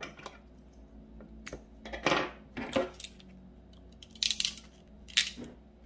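Small metal hand tools clicking and clattering on a wooden table: scissors set down and crimping pliers handled and closed on a metal crimp sleeve on fishing leader line. A handful of separate sharp clicks, the loudest about two seconds in and just after five seconds.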